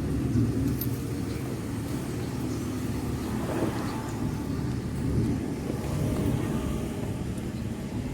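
Vehicle engine running steadily with a low hum, under a faint noisy rush.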